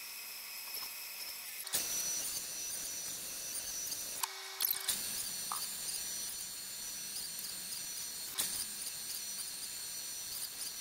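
Bandsaw running steadily with a high whine while trimming the glued-in wooden splines flush at the box corners, the sound breaking off and resuming abruptly a few times.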